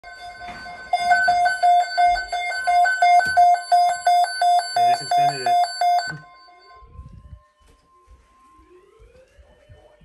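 Midland weather alert radio sounding its alarm for a tornado watch: a loud, rapid train of high electronic beeps, about three a second. The beeps cut off suddenly about six seconds in, when a button on the radio is pressed.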